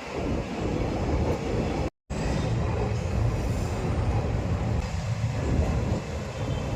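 Train running with a loud, steady low rumble that comes in abruptly and eases off near the end. The sound drops out completely for a split second about two seconds in.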